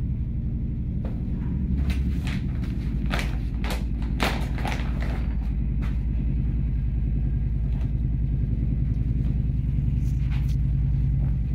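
Fabric rustling as folded suit cloth is handled and unfolded, in short sharp bursts mostly in the first half and once near the end, over a steady low hum.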